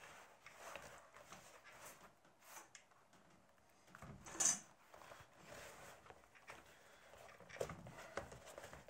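Faint handling sounds of hands pressing and rubbing a glued leather edge flat on a wooden table top: soft rubs and light knocks, with one louder, brief rub about four and a half seconds in.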